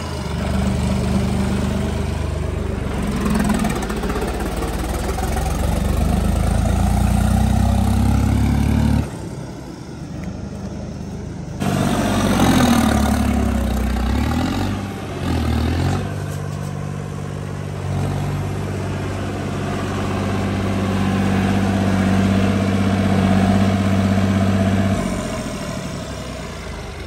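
Modified tractor's diesel engine running as it drives over loose dirt, mostly steady. About nine seconds in it drops away abruptly, then comes back around twelve seconds in with the engine note rising and falling as it revs.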